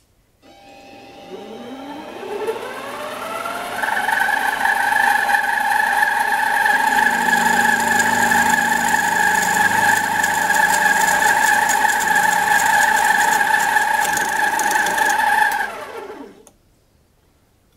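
Harbor Freight metal lathe starting up, its whine rising in pitch over about four seconds, running steadily at speed, then spinning down and stopping about sixteen seconds in.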